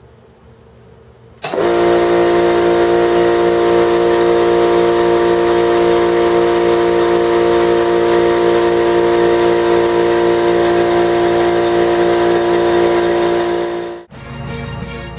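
Central Pneumatic 21-gallon cast iron vertical air compressor starting up about a second and a half in, then running loud and steady with a strong droning hum. It cuts off abruptly about a second before the end, and music follows.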